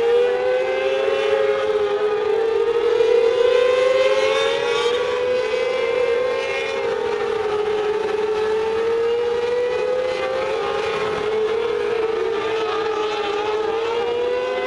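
Several mini sprint race cars lapping a dirt oval, engines held at high revs, their overlapping notes rising and falling in pitch as the cars go through the turns and down the straights.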